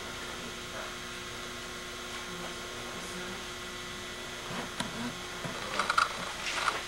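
A steady electrical hum with faint hiss, joined over the last couple of seconds by a cluster of soft knocks and rustles.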